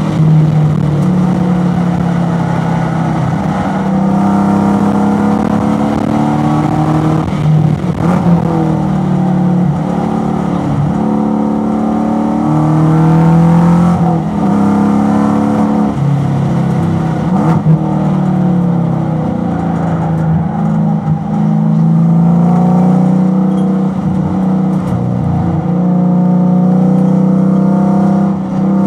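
Chevrolet Corvette V8 race engine heard from inside the car at high revs. Its pitch rises and falls through the corners, with brief dips as the driver lifts and downshifts from fourth to third gear.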